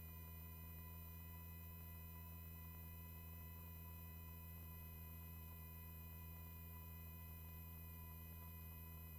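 Near silence: only a faint, steady electrical hum made of a few unchanging tones, with no rotor or engine noise, as from a helicopter headset intercom line when nobody is talking.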